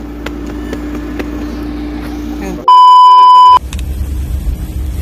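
A car's steady engine and road hum, broken about two and a half seconds in by a loud, steady electronic beep about a second long. After the beep the background changes abruptly to a rougher, low engine rumble.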